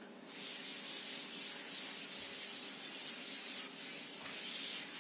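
A chalkboard eraser being wiped across a chalkboard in repeated rubbing strokes, roughly two a second, starting about a third of a second in.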